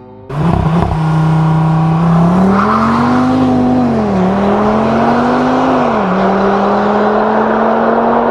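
A car engine bursting into life and then revved: its note climbs and holds high, drops back about halfway through, rises again, falls once more, then climbs and holds.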